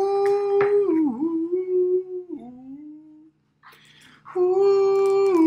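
A man humming a wordless tune in long held notes, the pitch dipping briefly between notes. It drops lower near the middle, breaks off for about a second a little past three seconds in, then resumes.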